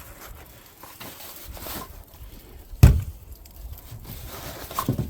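Handling noise of small camping gear being moved and put away: soft rustling and scraping, with one sharp knock just under three seconds in.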